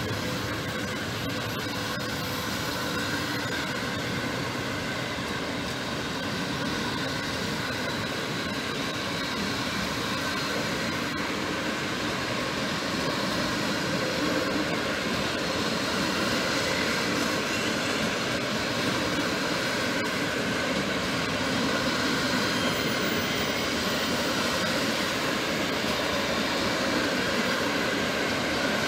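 Train of passenger coaches rolling slowly past: a steady noise of wheels on rails with a few faint steady tones, growing slightly louder near the end.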